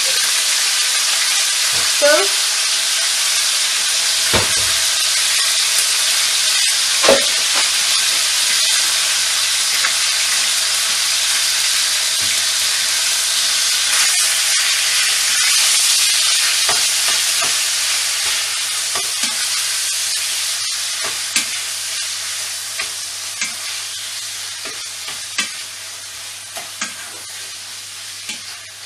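Chicken pieces sizzling in a frying pan, with a spatula knocking and scraping against the pan every second or so. The sizzle gradually dies down over the last third.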